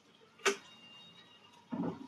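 A sharp metallic clink in the kitchen that rings briefly, then a duller, short knock near the end.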